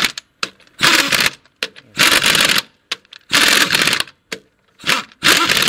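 Rapid metallic clicking in about six short bursts, with brief pauses between them: a wrench tightening fasteners on a GAZ-3308 truck as the axle shaft is fitted into the differential.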